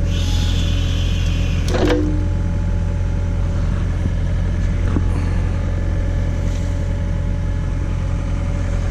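John Deere 317 tractor engine running steadily under the Davis D100 backhoe, with a higher hiss for the first two seconds that ends in a short knock.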